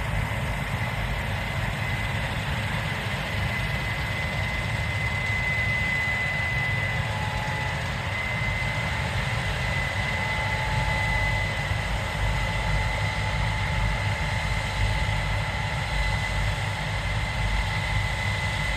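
Case IH 7230 Axial-Flow combine running steadily, a deep even rumble with a thin, steady high whine over it.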